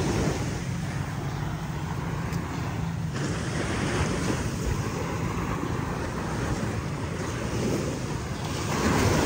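Sea waves washing onto a beach, with wind buffeting the microphone. A low steady hum is heard under the surf for the first three seconds, and a wave surges louder near the end.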